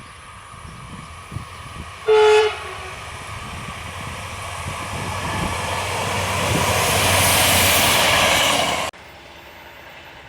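ADIF VUR 606 track-inspection vehicle sounding one short horn blast about two seconds in, then passing by with a rushing rail noise that builds steadily and cuts off suddenly near the end.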